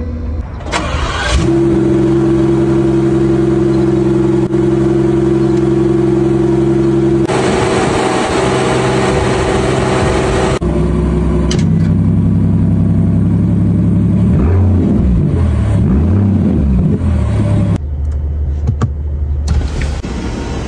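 BMW 760Li's V12 engine cranks and starts about a second in, then idles steadily. Its sound changes abruptly twice, and it is revved with a few quick blips a little past the middle.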